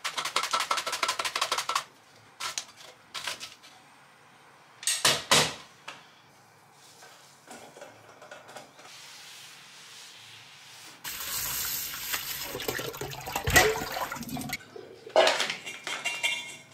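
Red onion sliced on a stainless-steel mandoline: a quick run of rasping strokes, followed by scattered knocks and a clatter of metal kitchenware. About eleven seconds in, tap water runs steadily for three or four seconds, rinsing the onion rings in a metal colander, then the rings are shaken out with more handling noise.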